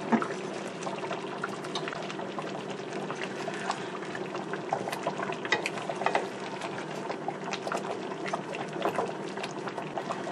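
White peanut sauce boiling in a frying pan: a steady bubbling with many small pops. At this stage the peanuts still foam at the edges of the pan, which shows they are not yet cooked.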